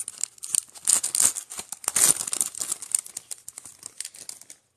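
Foil wrapper of a trading card pack being torn open and crumpled by gloved hands: dense crinkling and crackling that dies away just before the end.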